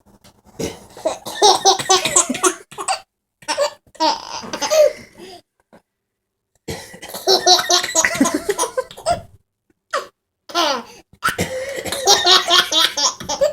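A baby laughing heartily in bursts, in reply to a man's put-on coughs. Several rounds of cough and laughter come in turn, with short pauses between them.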